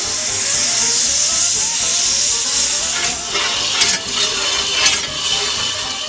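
Steam hissing from a 1919 Fowler AA7 ploughing engine, fading after about three seconds, with two sharp knocks about four and five seconds in.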